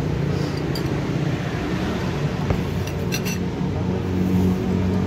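Steady rumble of road traffic, with an engine growing louder near the end, and a few light clinks of a spoon against a bowl.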